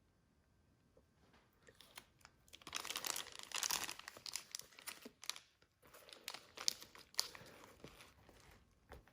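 Crinkly packaging being handled by hand: after a quiet start, repeated bursts of crinkling and rustling, with a short pause about halfway through.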